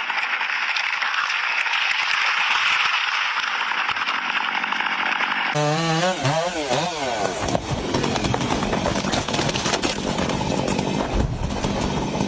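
Chainsaw running under load, cutting through wood. About halfway through, the sound changes abruptly and the engine's pitch swings up and down for a couple of seconds before the saw settles back into steady cutting.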